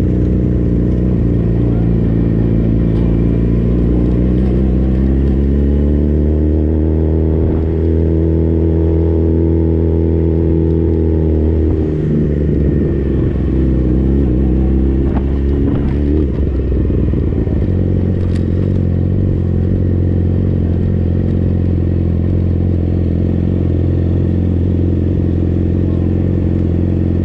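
Race motorcycle engine heard from on board at low revs as the bike rolls slowly. The revs rise and fall once partway through, with a couple of clunks, and the engine then settles to a steady idle as the bike comes to a stop.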